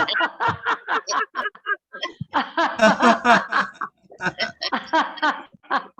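Laughter-yoga group laughing on cue, rapid repeated ha-ha pulses in bouts with brief pauses for breath, heard over an online video call.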